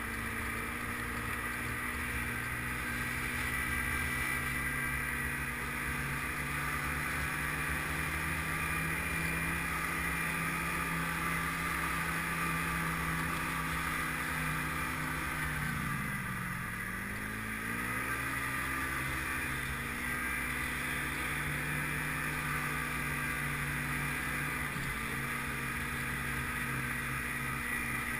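Snowmobile engine running steadily at cruising speed, with a steady whine above it; about halfway through its pitch dips briefly and then climbs back.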